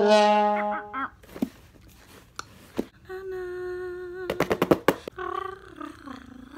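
A short brass fanfare ends about a second in. A woman then hums a steady note, broken about four and a half seconds in by a quick run of about seven sharp hits, and hums on with a wavering pitch.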